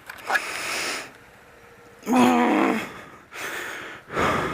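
A man's heavy, gasping breaths, with a short voiced groan about two seconds in.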